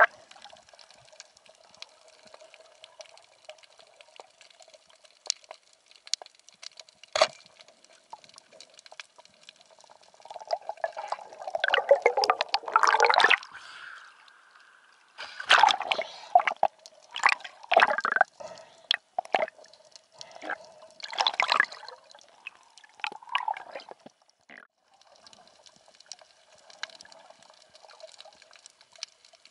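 Sea water sloshing and gurgling around the microphone, in loud bursts from about ten seconds in until about twenty-two seconds, with scattered sharp clicks and a faint steady hum underneath.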